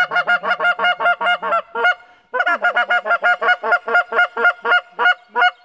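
Molt Gear EX3 X Series goose call blown by hand in a fast run of short honking notes, about six or seven a second. The run breaks briefly about two seconds in, then starts again and ends with a few spaced notes.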